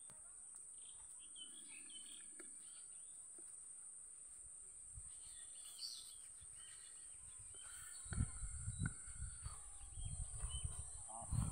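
Outdoor rural ambience: small birds chirping, over a steady high insect drone. From about eight seconds in, irregular low rumbling on the microphone.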